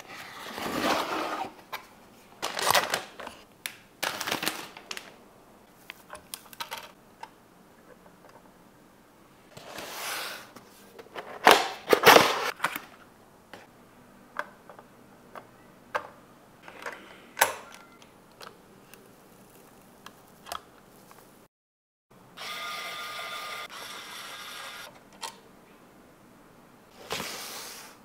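Computer parts and packaging being handled: scattered clicks and taps with a few rustling swishes. After a brief gap near the end, a steady buzzing sound runs for about three seconds.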